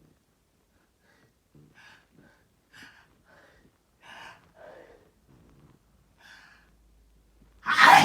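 A person's short, halting gasping breaths, about nine catches building up, then a sudden loud sneeze near the end with a falling voiced tail.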